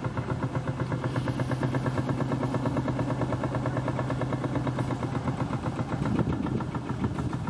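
Vintage tractor engine running steadily with a fast, even beat.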